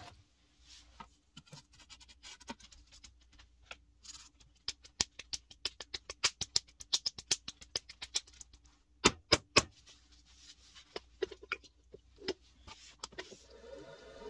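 Wet clay being patted and slapped between the hands over a pottery wheel: a quick run of sharp pats about five a second through the middle, with two louder slaps about nine seconds in, all sped up to double speed. A steady hum comes in near the end as the clay is pressed onto the turning wheel.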